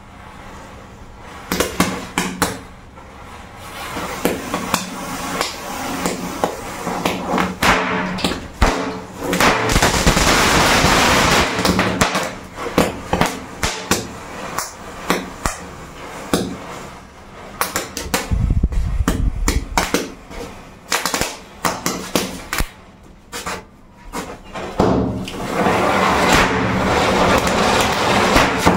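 Matchstick chain burning, with match heads flaring and crackling in sharp pops, and a dense burst of hissing about a third of the way in. Near the end a Diwali fountain firework (anar) catches and gives a steady hissing spray of sparks.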